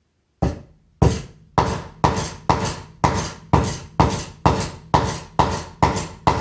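Hammer striking a wheelchair caster wheel bearing in a steady series of about thirteen blows, roughly two a second, each with a brief ringing decay.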